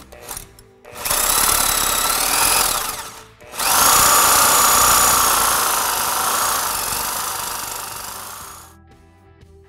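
Reciprocating saw cutting through the steel ball joint of a seized sway bar link, in two runs: about two seconds, a short stop, then about five seconds that die away near the end.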